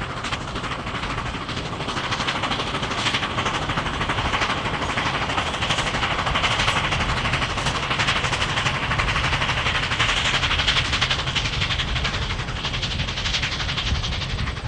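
Nickel Plate Road 765, a 2-8-4 Berkshire steam locomotive, working at speed: its exhaust beats come so fast they run together into a rapid rattle, growing louder toward the middle and easing slightly near the end.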